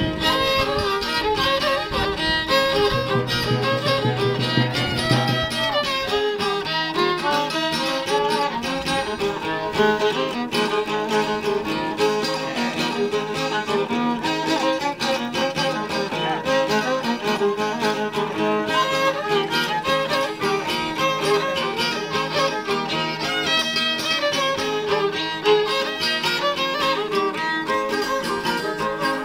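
Violin played close by: a lively, repeating Rarámuri (Tarahumara) fiddle dance tune, played without a break.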